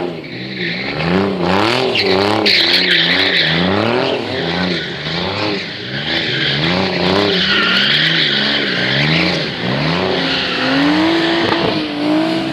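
Porsche being drifted on wet tarmac: the engine revs rise and fall over and over as the throttle is worked, over a loud hiss of sliding tyres. Near the end the revs hold steadier for a moment.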